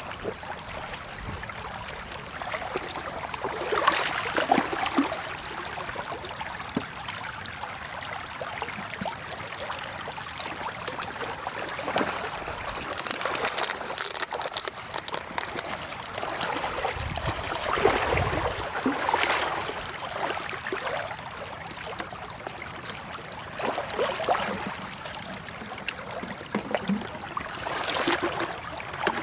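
Shallow floodwater running and trickling, with irregular louder splashes every few seconds.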